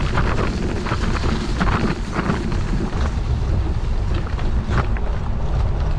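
Wind buffeting the camera microphone: a loud, steady low rumble with scattered crackles.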